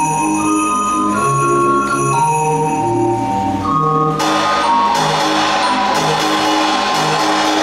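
Automated mechanical band machine playing a tune. Tuned bells and pipes carry the melody. About four seconds in, a cymbal crash and drum strikes join in.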